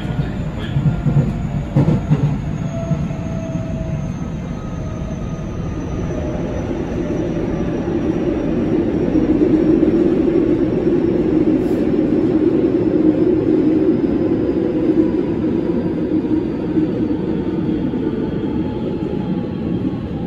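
JR West 207 series electric train heard from inside the car, its Toshiba IGBT inverter and traction-motor whine falling slowly in pitch as the train slows on the approach to Kashima. Wheel and track rumble grows louder about eight seconds in as the train runs into the tunnel.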